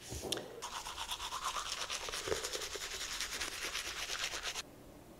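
Manual toothbrush scrubbing teeth with toothpaste: quick back-and-forth brushing strokes that cut off suddenly near the end.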